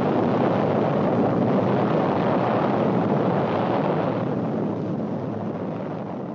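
Steady, noisy rumble of a nuclear test explosion from archival film, fading out over the last two seconds or so.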